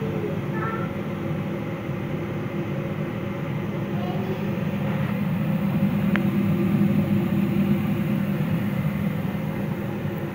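Hot oil sizzling and crackling around donuts frying in a frying pan, over a steady low rumble. A single faint click about six seconds in.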